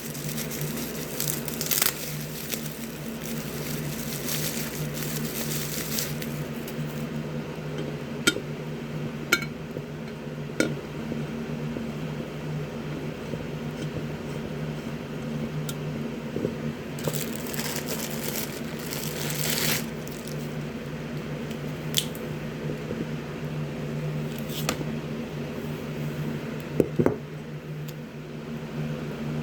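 Packaging being handled: paper and cardboard rustling in a few stretches, with several sharp clicks and knocks of the items being set down and handled, over a steady low hum.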